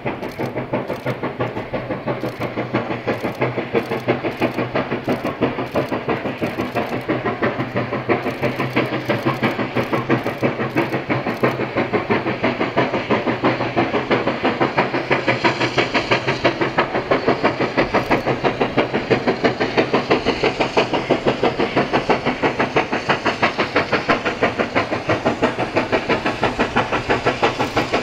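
Steam locomotive working a passenger train, its exhaust chuffing in a fast, even beat and slowly growing louder as it approaches.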